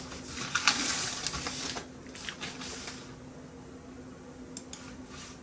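Soft rustling and scraping handling noise at a desk for the first few seconds, then a few sharp light clicks near the end, over a faint steady hum.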